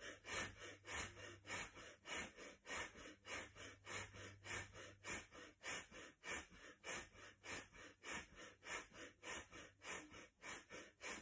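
A woman's rapid, forceful rhythmic breathing in a yoga breathing exercise, about three short breath sounds a second in a steady run, each breath paced with her arms pumping up and down.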